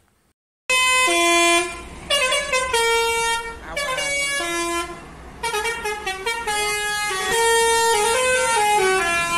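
Multi-tone musical air horn of an Indonesian high-deck coach bus, a 'telolet' horn, playing a tune of held notes that step up and down in pitch. It starts about a second in.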